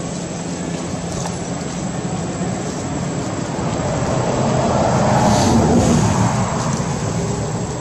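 Steady rushing, rumbling background noise that swells louder about four seconds in and eases off again near the end.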